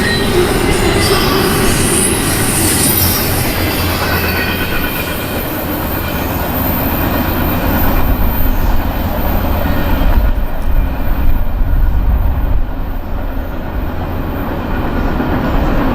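Freight train cars rolling past on the rails, with wheels squealing in the first few seconds, then giving way to a deeper, steady rumble.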